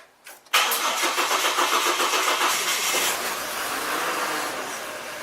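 Ford Falcon car engine starting about half a second in, running loudly for a couple of seconds, then settling to a steady idle.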